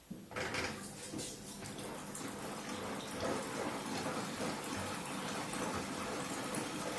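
Hoover washing machine taking in water for the first rinse: water starts rushing in abruptly just after the start and runs on steadily, with a low steady hum beneath it.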